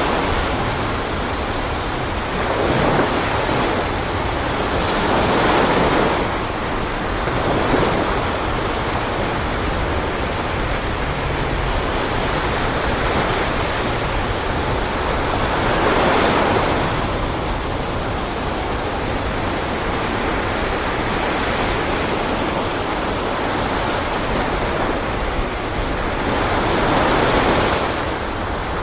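Sea waves washing, the rush swelling and falling back every few seconds.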